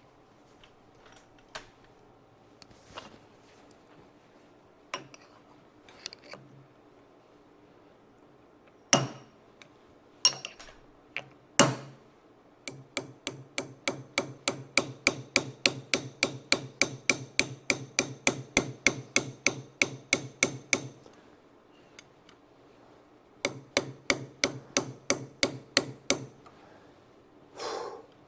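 Hammer striking a steel pin being driven into a metal hose clamp tool: a few scattered taps, two hard blows, then steady runs of rapid strikes at about four a second with a metallic ring, pausing once.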